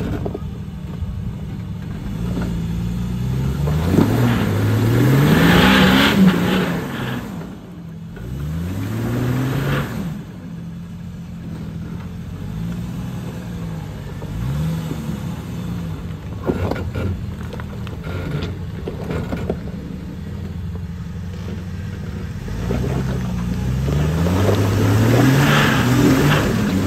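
Jeep Cherokee XJ engine revving in repeated throttle bursts while climbing a muddy hill, each rev rising and falling in pitch. The loudest surges come about five seconds in and again near the end.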